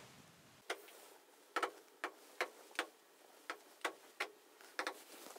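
Light, irregular clicks of a stylus tapping on a large touchscreen display, about ten taps in a few seconds.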